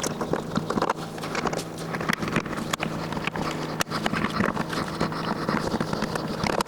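Irregular clicks, taps and knocks of hand tools and metal fittings being handled while dome wheels are being swapped, over a steady low hum.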